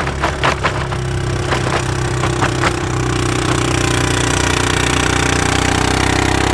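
ATV engine running steadily while towing a plastic sled across snow-covered lake ice, heard from the sled. For the first three seconds or so the sled knocks and clatters over bumps, then the ride smooths into a steady engine sound with a hiss of snow.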